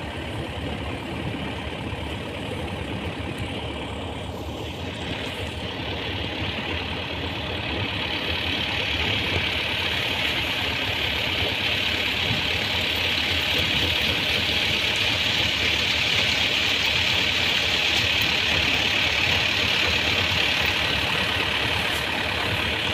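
Groundnut thresher (haler) running steadily: a continuous machine din with engine hum under a rushing noise, growing louder about a third of the way in.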